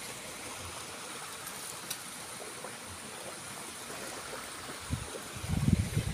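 Steady rushing outdoor noise over flooded rice paddies. About five seconds in, wind starts buffeting the microphone in low, uneven rumbling gusts.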